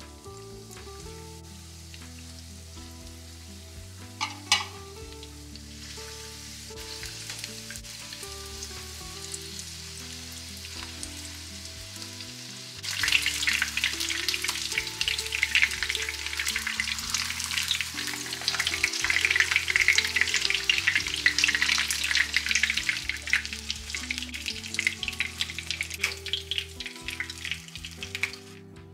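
Breaded chicken tenderloins deep-frying in a shallow pan of oil: a soft sizzle that becomes a loud, dense crackling about halfway through, with a short sharp spike of sizzle about four seconds in.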